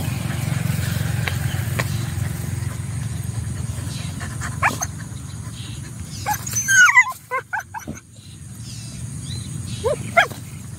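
Dog giving a quick run of short, high, pitch-bending yelps about two-thirds of the way in, with single yelps before and near the end, over a steady low rumble.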